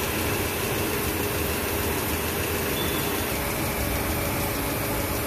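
Kia Rio's gasoline engine idling steadily with the hood open, a car being checked for engine vibration and low power.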